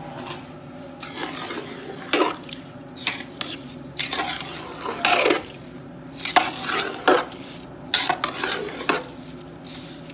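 Metal spoon stirring rice through boiling water in a large metal pot, scraping against the pot in a series of irregular strokes.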